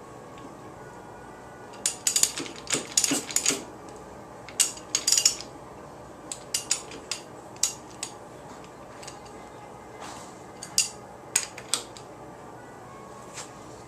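Metal hand tools and engine parts clinking and knocking against each other, in irregular clusters of sharp clicks, some with a brief metallic ring.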